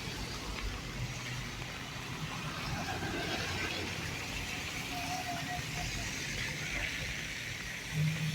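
Steady rain with road traffic going by, car engines humming underneath.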